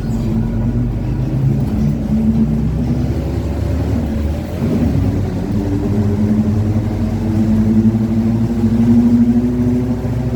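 Mercedes-Benz OF-1721 bus under way, its drivetrain giving the growl of the differential over the diesel running. The tone dips briefly about halfway through, then climbs slowly in pitch as the bus gathers speed.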